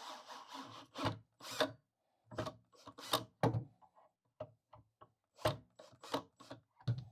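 Wooden boards and pieces being handled: a scraping rub near the start, then a string of short, irregular scrapes and knocks of wood.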